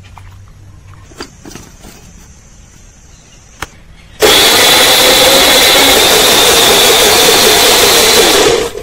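Electric mixer grinder switched on about four seconds in, running at a steady high speed with a steady whine as it grinds onion, garlic, green chilli and water into a paste, then cut off just before the end. Before it starts there are a few light clicks and knocks.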